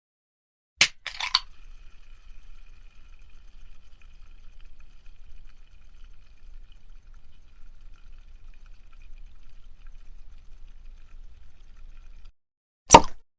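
Liquid poured from a bottle: a sharp click and brief rattle, then a faint steady pour for about eleven seconds that stops abruptly, followed near the end by a single loud, sharp knock.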